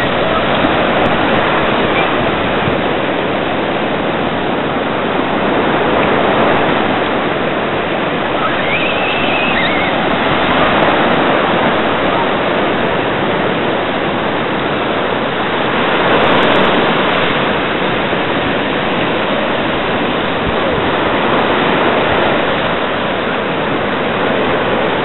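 Surf breaking on a beach: a loud, steady rush of waves that swells every few seconds.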